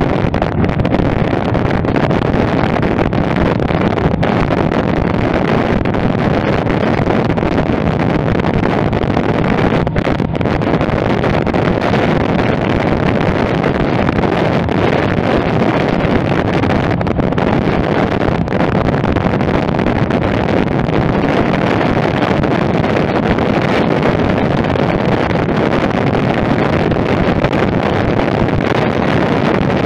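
Steady wind rush on the microphone while a Royal Enfield Meteor 350 cruises at an even road speed, its single-cylinder engine running underneath the wind.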